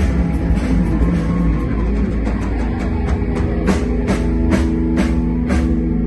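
Live rock band playing an instrumental passage without vocals: guitar chords held over a drum kit, with a string of accented drum and cymbal hits about half a second apart in the second half.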